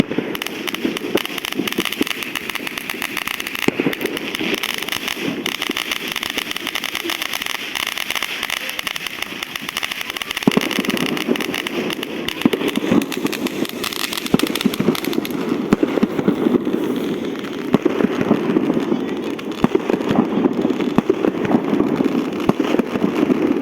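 Fireworks going off thickly: a dense, continuous crackle of many firecrackers and bursting shells, with occasional sharper bangs standing out.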